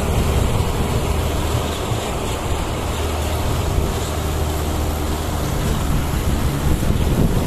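Mahindra 585 DI tractor's diesel engine pulling under load as it tows a soil-laden trailer over loose dirt, a steady low engine note with a haze of noise over it.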